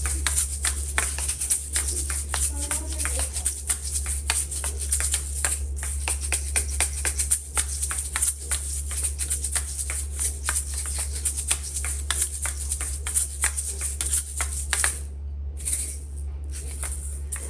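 Asalato (kashaka) shakers, small seed-filled shells joined by a cord, swung and clacked together in fast patterns: rapid rattling clicks at an uneven rhythm.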